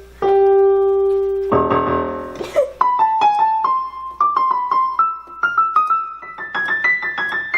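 Yamaha PSR-EW410 76-key portable keyboard being played: a held note, a brief chord about a second and a half in, then a run of short single notes stepping upward in pitch.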